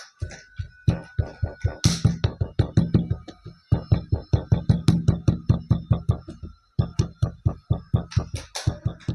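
Background music: a synthesizer track with a fast, even beat of about five pulses a second, breaking off briefly twice.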